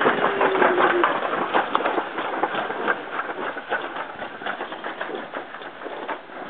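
Toboggan sled rolling down a stainless-steel chute, its wheels rumbling with many quick clicks and rattles, fading gradually.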